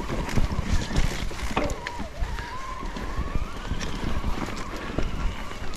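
Wind rushing over the microphone and rolling noise from a moving bicycle, with frequent small rattles and knocks. A thin whine dips and then climbs in pitch for about two seconds in the middle.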